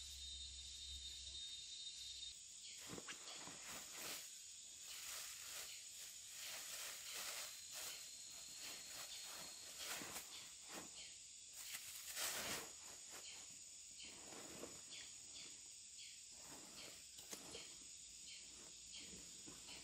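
Camouflage fabric backpack being opened and rummaged through by hand: irregular rustling and crinkling of cloth and a blue bag, loudest about midway. A steady high insect drone runs underneath.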